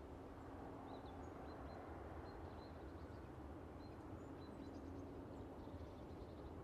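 Quiet rural ambience: a steady low hum of a distant car or road, with faint, scattered bird chirps.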